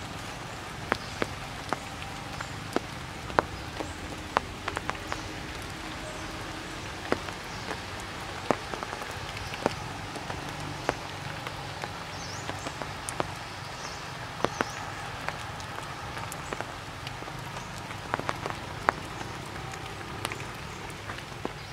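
Rain falling in the tree canopy: a steady wash of rain with irregular sharp taps of drops hitting leaves and branches.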